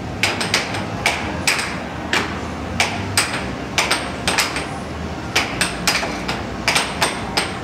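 Plastic air hockey puck clacking against mallets and the rails of a Dynamo Fire Storm air hockey table during a fast rally: sharp, irregular clacks, sometimes two or three in quick succession.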